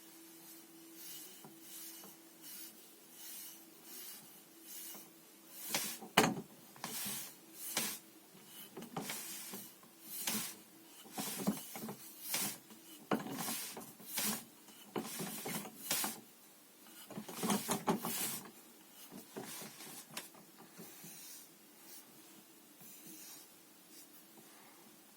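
Hands, arms and sleeves brushing and slapping against each other in a Wing Chun lap sao / lap da drill: a run of short swishes about once a second, with one sharp slap about six seconds in, over a faint steady hum.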